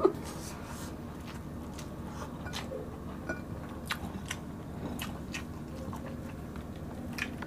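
Close-up eating sounds: chewing, with scattered short clicks and crackles, as fried dried milkfish (daing na bangus) and rice are eaten by hand. A faint steady hum runs underneath.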